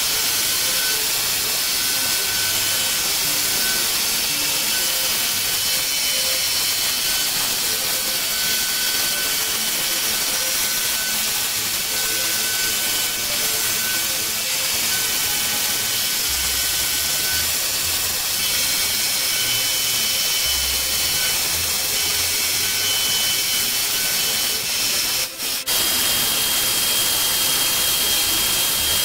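CNC milling machine cutting an aluminum block with an end mill: a steady hissing cut with a thin high whine that comes and goes. The sound drops out for a moment near the end.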